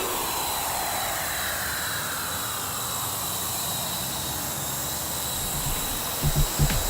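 Electronic dance music breakdown: a long falling sweep effect with no drums, and the beat comes back in near the end.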